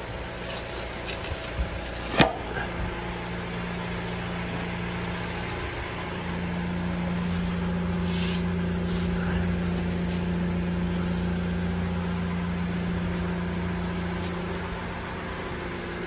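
Farm grain-handling machinery running with a steady hum while a stream of mixed bird seed pours from the hopper spout into an open-top container. There is a single sharp knock about two seconds in, and the hum steps slightly higher and louder about six seconds in.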